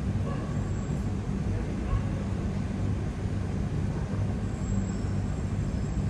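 Steady low mechanical hum and rumble of urban background noise.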